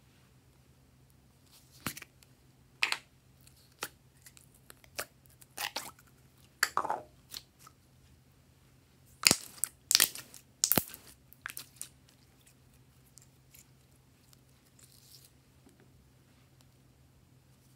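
Glossy slime squeezed and pulled in the hands, giving irregular sticky clicks and pops, bunched between about two and twelve seconds in, with quiet stretches before and after.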